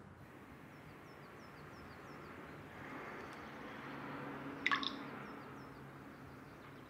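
Quiet room ambience with a soft hiss, runs of faint high chirps, and one short sharp sound a little past the middle.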